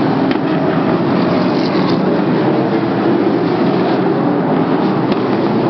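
Sprint car engines running at race speed around the oval, a loud, steady drone that holds without a break.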